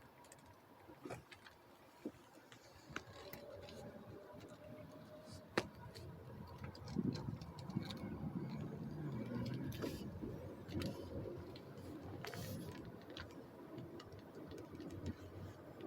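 Road and engine noise from inside a moving car, growing louder about seven seconds in, with scattered irregular clicks and knocks.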